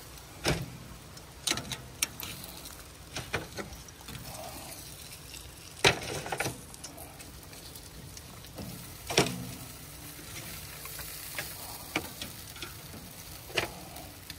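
Metal tongs clacking against a charcoal grill's grate as cooked chicken pieces are lifted off: about ten sharp, unevenly spaced clicks, the loudest about six and nine seconds in, over a faint steady hiss.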